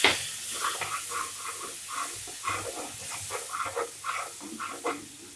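Water just added to hot fried masala in a wok, sputtering and bubbling in irregular pops and gurgles, fading as the sizzle dies down toward a simmer.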